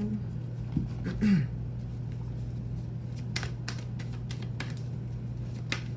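A deck of tarot cards being shuffled by hand, the cards flicking and slapping against each other in quick runs of sharp clicks from about halfway in. A steady low hum sits underneath.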